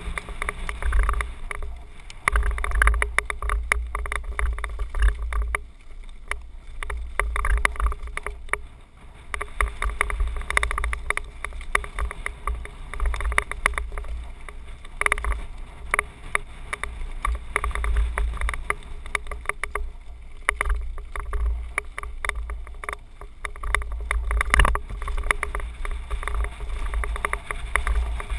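Mountain bike descending a rough dirt trail, heard from a helmet-mounted camera: steady rattling and clattering of the bike over bumps, under heavy low wind rumble on the microphone that surges and fades with speed.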